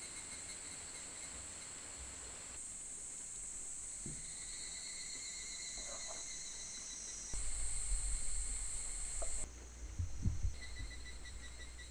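Insects chirping steadily in fast pulses, a summer insect chorus. A low rumble and a few soft knocks come in the second half and are the loudest part.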